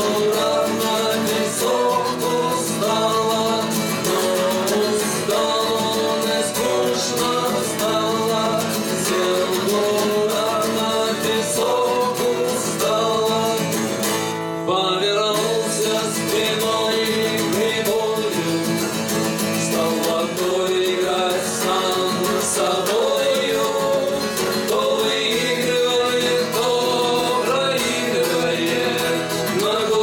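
Two men singing a Russian bard song in a duet, each strumming an acoustic guitar, one of them a twelve-string. There is a brief break about halfway through.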